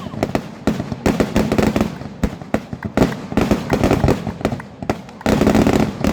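Fireworks display: rapid overlapping bangs and crackling shell bursts, turning into a dense, continuous crackle a little over five seconds in.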